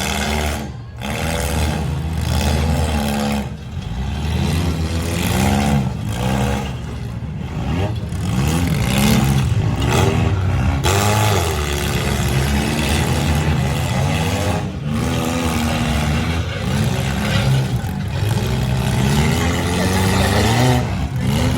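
Several four-cylinder demolition derby cars' engines revving up and down at once, a loud continuous din of overlapping rising and falling engine notes.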